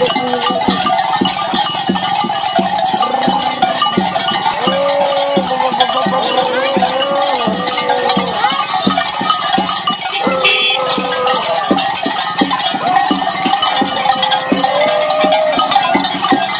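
Many cowbells jangling constantly and unevenly as a group of masked caretas walk, the bells swinging on their costumes.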